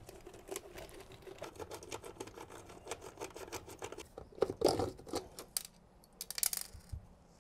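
Light rapid clicks, scrapes and rattles of a large electrolytic can capacitor being worked loose from its metal mounting clamp and lifted out of a power-supply chassis, with a few louder knocks about four and a half and six and a half seconds in.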